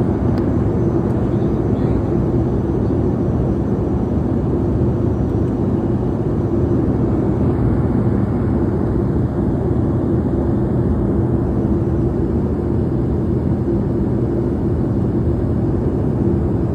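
Airliner cabin noise in flight: a steady, even rumble of the engines and rushing air, with a faint steady hum underneath.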